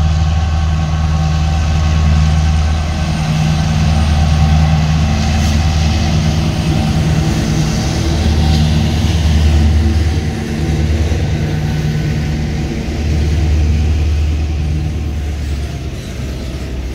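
Two CC 204 diesel-electric locomotives in double traction running past under power: a loud, low engine drone that swells and fades several times as the units go by. Near the end it eases into the quieter rolling of the container wagons on the rails.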